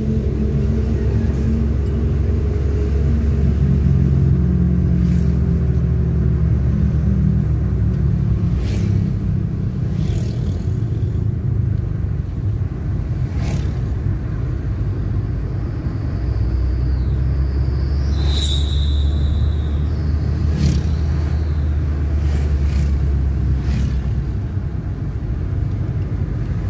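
Car engine and road rumble heard from inside a car driving downhill, the engine note shifting in pitch over the first several seconds before settling into a steady low rumble. A few short clicks and a brief high-pitched tone about two-thirds through.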